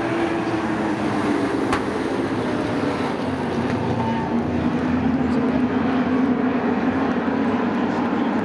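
Sport truck race engines running on a short oval track: a steady, loud engine drone whose pitch sags slightly in the middle and rises again.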